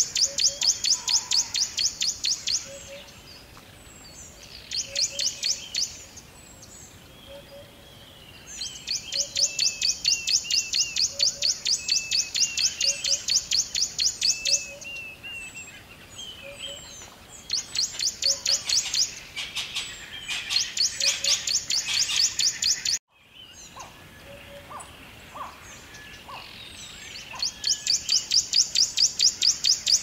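Forest ambience of calling birds: bursts of a fast, high-pitched pulsing trill, each lasting a few seconds, with softer chirps in the gaps. About two-thirds of the way through, the sound cuts out abruptly for a moment.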